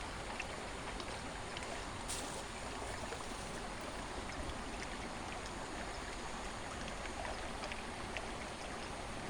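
Steady rush of flowing river water, with a few faint ticks and one short hiss about two seconds in.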